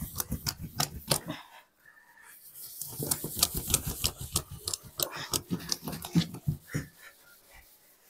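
Wet hands scrubbing and slapping the plastic side panel of a washing machine cabinet, with water splashing. It comes in two spells of quick rubbing strokes, with a pause about a second and a half in, and dies down near the end.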